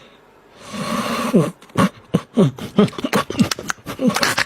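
An animal calling in a quick run of short yelps, two or three a second, each one falling in pitch, starting about a second and a half in after a brief hiss.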